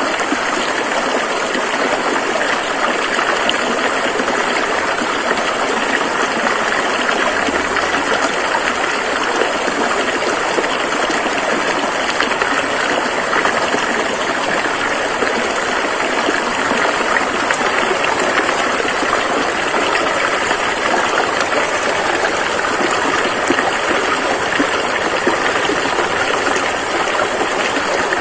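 Flowing river rushing steadily over rocks, an even unbroken wash of water noise.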